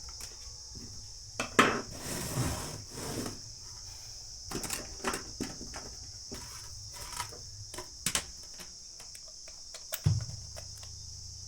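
Steady high chirring of crickets, with scattered clicks, taps and clatter of small metal parts and tools being handled on a workbench. A low steady hum comes in about ten seconds in.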